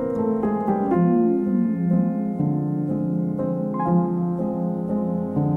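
Piano music from a film score: a quick run of notes falling in pitch over the first two seconds, then a slower melody over held low bass notes.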